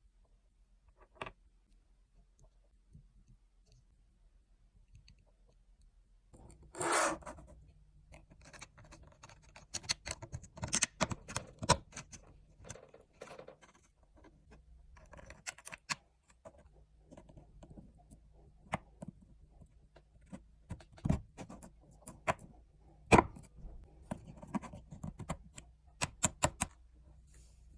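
Small computer parts and plastic pieces being handled and fitted together by hand: irregular clicks, taps and light scrapes, with a short rustling burst about seven seconds in.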